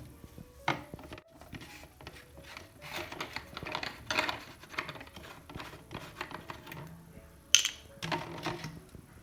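Small handling noises: scattered clicks, taps and brief rustling, with a sharp clack about seven and a half seconds in.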